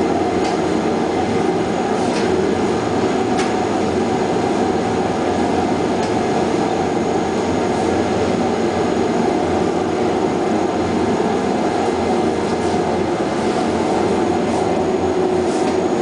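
Continuous conveyor microwave system for chili running: a steady machine drone with a few faint clicks.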